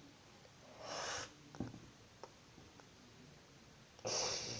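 A person sniffing twice, about a second in and near the end, with a few faint clicks in between.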